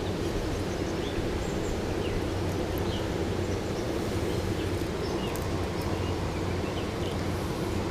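Steady outdoor background noise, with short faint bird chirps scattered throughout.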